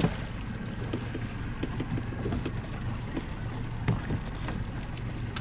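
Small fishing boat's motor running with a steady low hum at slow speed, with scattered light knocks.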